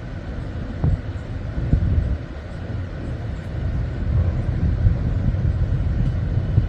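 Low, uneven rumble of wind buffeting the microphone on an open ship's deck, with a faint steady hum underneath.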